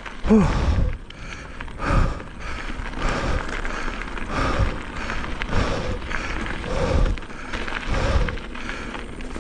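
Mountain bike rattling and clunking over a rough dirt trail, with irregular thumps as the wheels hit bumps.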